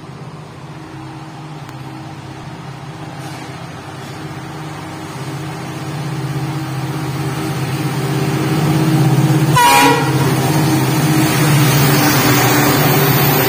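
Diesel locomotive hauling a goods train approaches, its engine running steadily and growing louder. A short horn toot comes about ten seconds in, then the rumble of the locomotive and wagons pulling in alongside.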